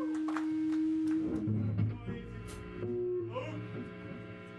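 Live noise music through a PA: a loud steady electronic tone holds, then stops about a second and a half in, leaving a steady amplifier hum with a few brief scattered sounds.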